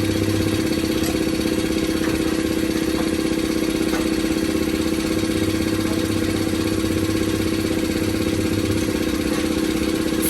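Steady mechanical drone of a motor or engine running at constant speed, with a few faint ticks over it.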